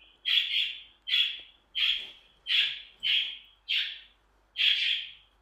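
About seven short, high-pitched scraping strokes in an even rhythm, one roughly every 0.7 seconds. They come from a wooden spoon working a thick minced-meat sauce, scooped from the pan and spread across a tortilla.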